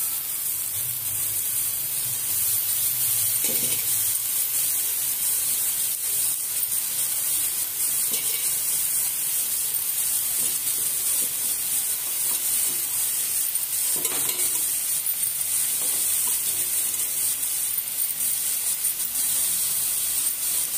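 Small dried fish frying in groundnut oil and masala in a kadai: a steady high sizzling hiss, with a few faint knocks.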